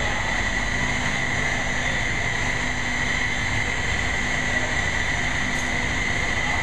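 Steady machinery drone with a constant high-pitched whine and a low rumble underneath.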